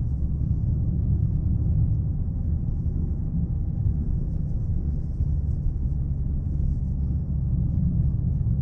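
Chevrolet Aveo driving: a steady low rumble of engine and road noise, with no change in pace.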